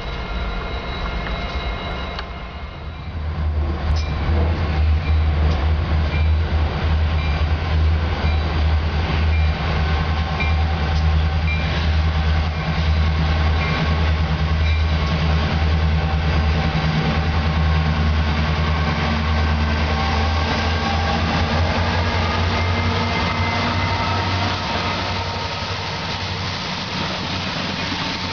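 BNSF freight train with diesel locomotives passing close by: a steady low engine drone over the rumble of rail cars on the track. The drone eases off about 25 seconds in.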